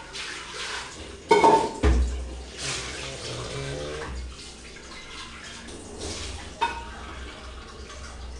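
A sleeping pet snoring, with a noisy breath every couple of seconds. Two sharp knocks or clinks a little over a second in are the loudest sounds, and a lighter click comes near the end.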